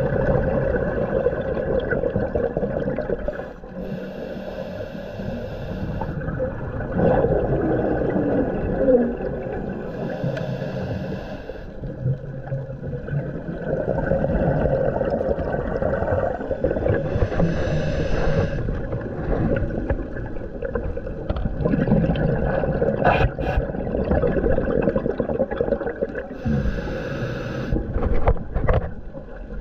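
Scuba diver's breathing heard through an underwater camera: muffled rumbling and gurgling, with a hissing burst of exhaled bubbles every six to seven seconds, four in all.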